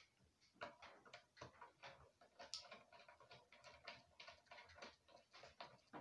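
Faint small clicks and ticks, a few a second, of a screwdriver turning the terminal screws of a Hexing electricity meter.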